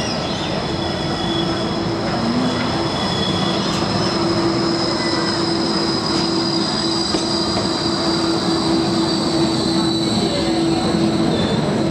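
Bombardier Flexity 2 light rail tram rolling into the station close by. There is a steady hum, a high whine that falls slightly in pitch, and a running rumble that grows gradually louder as the tram comes alongside.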